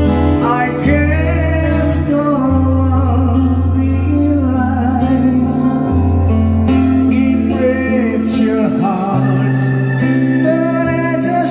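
Live band music: a wavering melody line with vibrato over held bass notes that change every couple of seconds.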